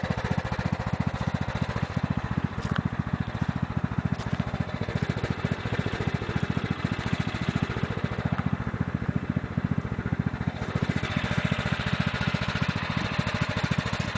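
A 1993 Sears Craftsman lawn tractor's 14 hp Kohler OHV single-cylinder engine idling steadily, an even, unchanging putter.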